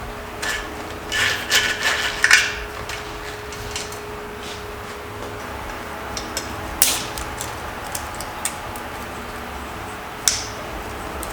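Hand tools working on metal dirt-bike parts during disassembly: a flurry of clinks and scrapes about a second in, then single sharp metallic clinks near the middle and near the end, over a faint steady hum.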